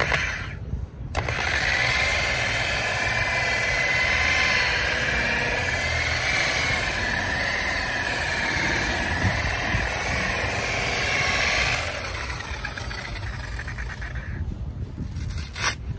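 Corded electric polisher with a wool pad buffing a wet-sanded plastic headlight lens with compound. The motor starts about a second in and runs with a steady whine whose pitch wavers slightly as the pad is pressed onto the lens. It eases off and spins down near the end as the pad is lifted away.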